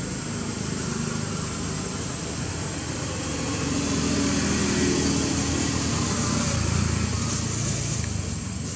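A motor engine droning past, growing louder about halfway through and easing off near the end, over a thin steady high-pitched whine.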